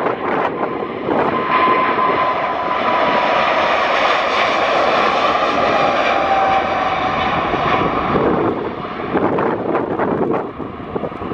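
Boeing 777 freighter's GE90 jet engines at takeoff thrust as the aircraft rolls past on its takeoff run. A loud rush of engine noise with a whining tone that drops slightly in pitch as it passes, easing off near the end as it moves away.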